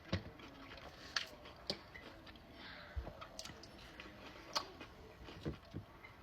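A person chewing a mouthful of food close to the microphone, with scattered sharp crunchy clicks from the bites.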